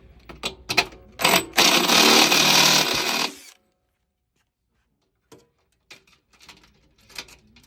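Power drill with a step drill bit enlarging a hole one size larger: a short blip of the trigger, then about two seconds of steady drilling that stops sharply, followed by a few light clicks.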